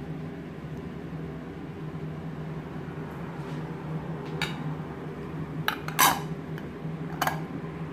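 Four short clinks of dishes or glassware, spread over the second half, the third the loudest, over a steady low hum.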